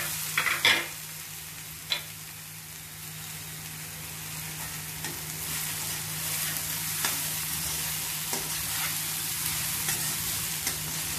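Cluster beans and moong dal frying with a soft steady sizzle in a kadai while a spatula stirs and scrapes them. A few sharper scrapes and taps of the spatula on the pan stand out, the loudest just under a second in and another about two seconds in.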